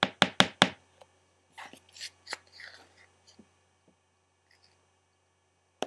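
Sharp clicks and taps of a small plastic utensil against a plastic candy-kit tray while batter is spooned into its wells: a quick run of loud clicks at the start, a few more with a light rustle about two seconds in, then near quiet until a last click at the end.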